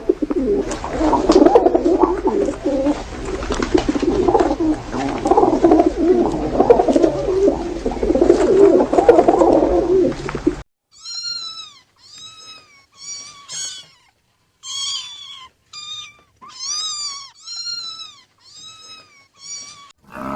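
A dense, continuous clamour of noise for about ten seconds, cutting off abruptly. A cat then meows about eleven times, short high calls that each rise and fall in pitch.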